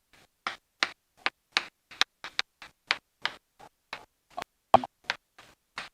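Badly broken-up recording: brief clicky fragments of sound about three to four times a second, with dead silence between them, as the audio repeatedly cuts in and out.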